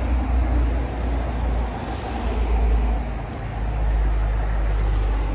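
A car passing close by on the road, tyre and engine noise swelling about two to three seconds in over a heavy low rumble.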